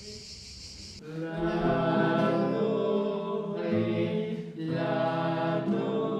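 Several voices singing long held notes together, wordless or on syllables, the pitch moving to a new note about every second. It starts suddenly about a second in, after a faint hiss.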